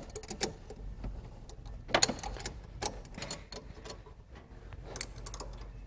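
Hand tools clicking and tapping on metal as the carburetor mounting nuts are tightened on the engine: irregular clusters of light, sharp clicks.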